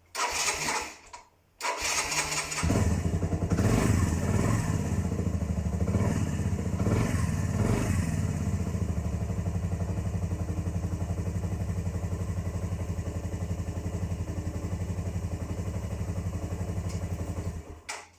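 Motorcycle started on its starter motor after its flat battery was put on charge. A brief crank, then a second crank, and the engine catches. It is revved unevenly for a few seconds, settles into a steady idle, and is switched off near the end.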